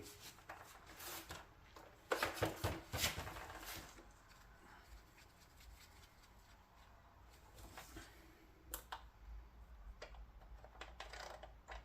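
Faint handling noises: scattered clicks and rustles, busiest a couple of seconds in, with one sharper click about nine seconds in.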